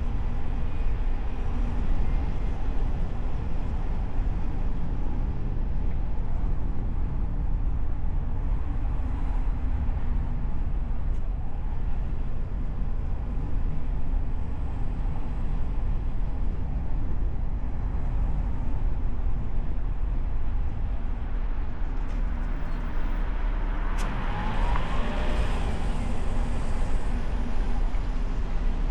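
A car driving through city traffic, heard from a hood-mounted camera: a steady low rumble of road and wind noise. From about 22 to 27 seconds another vehicle passes close by, with a louder hiss and a short tone that bends in pitch.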